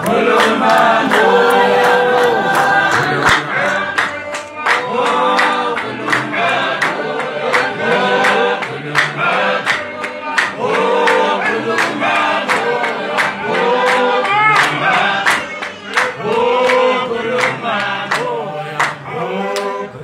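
Congregation singing a hymn together, many voices in harmony, with steady hand clapping about twice a second keeping the beat.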